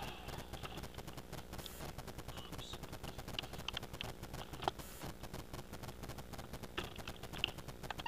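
Roomba robot vacuum running, heard from a camera riding on top of it: a fast, even clicking rattle over a faint steady hum, with a few louder clicks.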